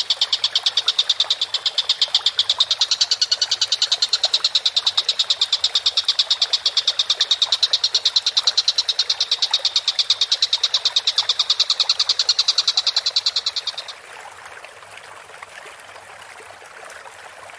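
Recorded call of a tengkek buto (collared kingfisher): a fast, even rattle of high notes, about seven a second, that stops abruptly about fourteen seconds in.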